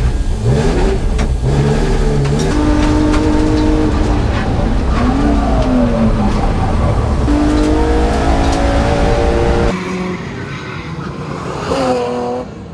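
BMW E36's M54B30 3.0-litre straight-six at racing speed, revs climbing through the gears, dropping as it slows, then climbing again. About ten seconds in, the sound cuts to a quieter engine note.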